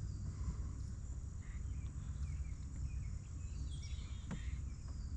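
Outdoor pond-side ambience: a constant low rumble, a steady high insect trill and a few faint bird chirps.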